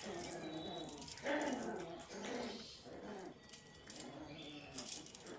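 A pet animal making several drawn-out whimpering cries, one after another, bending in pitch.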